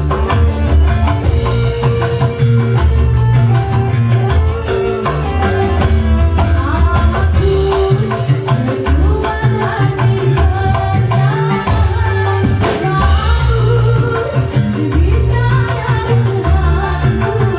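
Live dangdut band music with a steady drum beat, heavy bass and melodic instrument lines, with singing at times.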